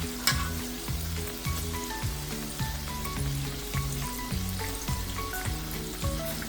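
Puff-puff dough balls deep-frying in hot vegetable oil, a steady sizzle with small crackles and a sharp click about a third of a second in, under background music with a steady stepping melody.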